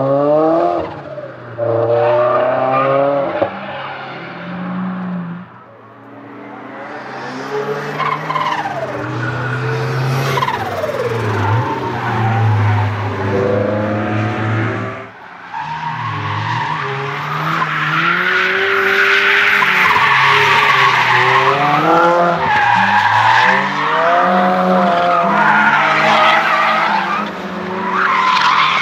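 Single-turbo Toyota GT86's flat-four boxer engine revving up and down repeatedly while drifting, with tyres screeching through the slides. The tyre noise is heaviest in the second half, with a brief lull about halfway through.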